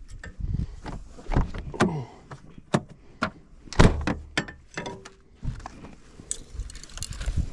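Irregular knocks, clicks and clunks of fishing and camping gear being handled at a van, with one heavier thump about four seconds in.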